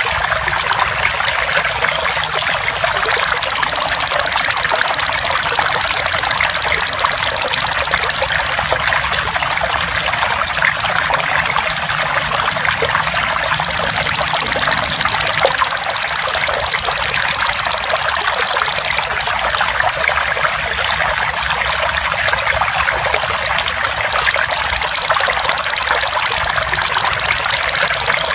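Steady trickling water with a belalang emas (golden grasshopper) calling over it in a high-pitched rapid buzz. The buzz comes three times, each spell about five seconds long, and the third is still going at the end.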